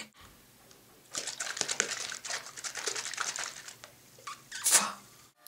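Fizzing crackle of shaken Pepsi foaming up in the bottle and in a drinker's mouth, a dense fine crackle lasting a couple of seconds, followed by one short loud burst near the end.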